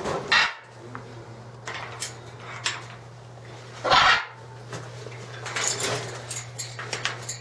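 Several short rattles and knocks, the loudest about four seconds in and a cluster near the end, over a steady low hum.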